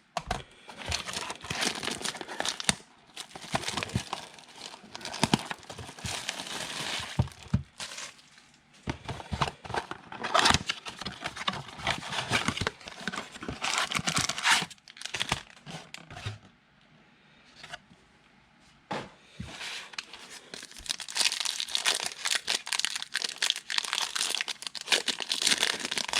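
Foil wrappers of 2019 Panini Prestige football card packs being torn open and crinkled by hand, in several runs of crackling with short pauses between them.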